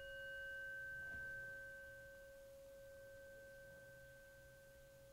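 Singing bowl ringing out after a strike, one clear tone fading slowly over several seconds; it is the chime that closes the guided relaxation.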